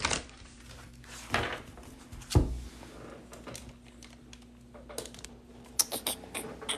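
Handling noise of a tarot card deck on a wooden tabletop: scattered knocks and taps, the loudest a dull thump about two and a half seconds in, and a quick run of light clicks near the end, over a faint steady hum.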